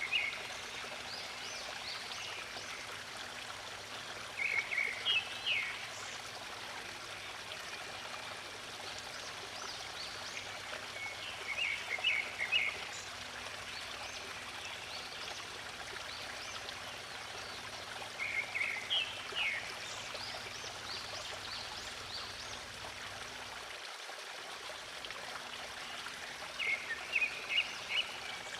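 Water flowing steadily in a stream, with a bird singing a short phrase about every seven seconds, five times.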